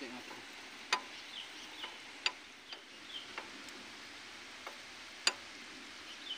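Sharp, irregularly spaced clicks and taps of hands and a tool working at the metal shaft fitting of a hand-tractor plough, about eight over a few seconds, the loudest a little past five seconds in.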